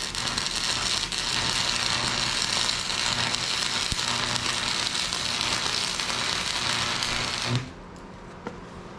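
Arc of a Lincoln AC180S transformer stick welder burning steadily, a dense crackle over a low buzzing hum, run at a turned-down amperage. The arc breaks off about seven and a half seconds in.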